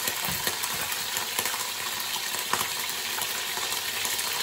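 Marinated beef roast searing in hot oil in a stainless steel pot: steady sizzling, dotted with many small crackling spatters. The lemon marinade on the meat makes the oil spit.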